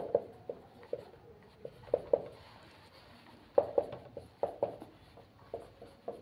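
Marker writing on a whiteboard: short squeaky strokes and taps in irregular clusters as letters and bond dashes are drawn.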